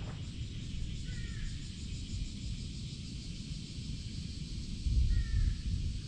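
Wind rumbling on the microphone, with a stronger gust near the end. A bird gives two short, faint falling calls, about a second in and again about five seconds in.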